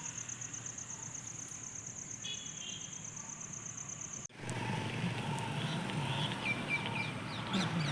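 An insect's high, evenly pulsing trill, cut off abruptly a little over four seconds in. After it come birds chirping and calling over a low background rumble.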